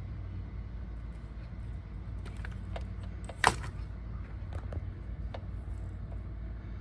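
Small clicks and handling noises of wires and spade terminals being connected to a new contactor and capacitor, with one sharp snap about halfway through, over a steady low hum.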